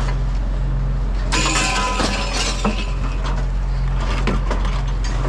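Junk being rummaged and shifted in a curbside scrap pile: a dense run of clinks, rattles and clattering starting about a second in. A steady vehicle engine hum runs underneath.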